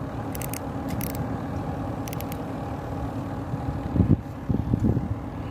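Boat's engine running with a steady low hum, with a few knocks about four to five seconds in.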